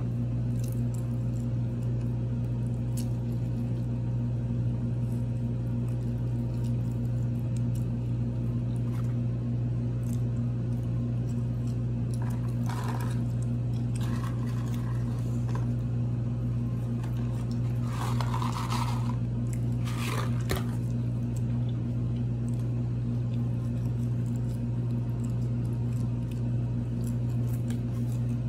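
A steady low hum, with soft chewing and small clicks as a sandwich is eaten. There are four brief rustles of paper food packaging, about halfway through and a few seconds later.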